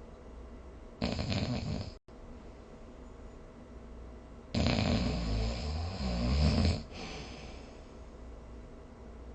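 Snoring in two breaths: a short snore about a second in that cuts off suddenly, then a longer, louder snore from about four and a half seconds to nearly seven.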